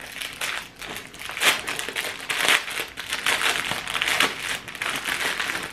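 Packaging of a makeup sponge set being handled and opened, with irregular crinkling and rustling throughout.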